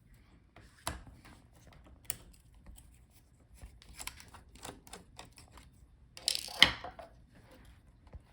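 Small, scattered clicks and taps of a laptop's internal parts being handled as the Wi-Fi card's antenna leads are unclipped and the card is taken out, with a louder scraping click about two-thirds of the way through.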